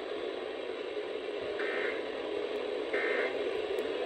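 Weather radio static with two faint, short EAS data bursts about a second and a half apart: the warbling end-of-message tones that close an alert.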